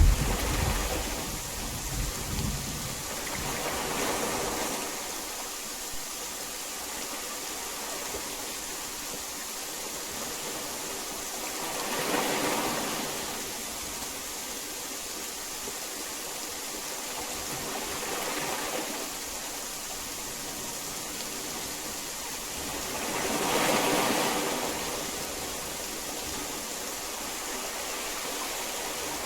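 Steady heavy rain hiss that swells and eases several times, each swell a few seconds long. A low thunder rumble fades out in the first couple of seconds.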